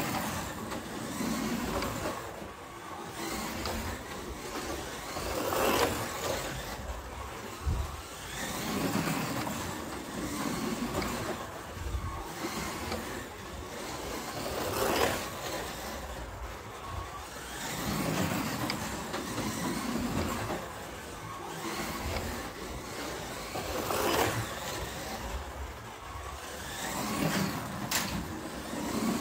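Carrera Digital slot cars running laps on a plastic track: a whirring, rattling electric-motor sound that swells and fades every few seconds as a car passes close.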